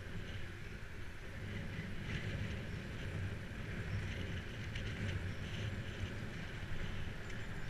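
Steady rumble of bicycle tyres rolling on tarmac, with wind buffeting the camera's microphone while riding.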